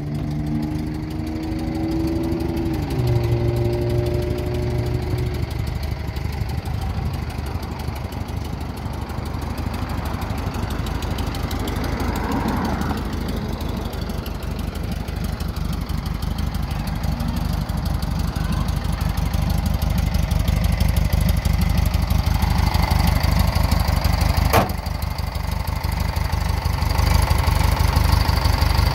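Stock 1500 air-cooled flat-four engine of a 1967 VW split-window bus idling steadily, getting louder near the end. A single sharp click about three-quarters of the way through.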